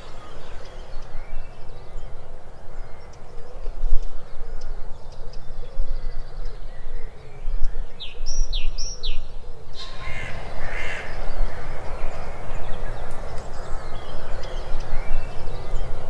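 Wild birds calling over a steady background of outdoor noise and low rumble, with a run of three quick high-pitched calls about eight seconds in. The background changes abruptly about ten seconds in, and more bird calls follow.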